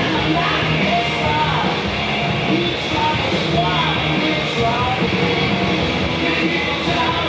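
Background rock song with a singing voice.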